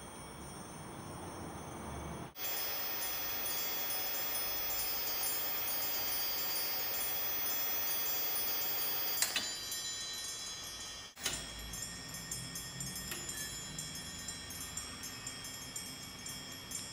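Electrostatic bells (Franklin-style static bells) ringing in a dense, continuous tinkling, their clapper driven to and fro by static charge from the cathode-ray-tube television screens. The ringing breaks off and resumes abruptly about two seconds in and again about eleven seconds in.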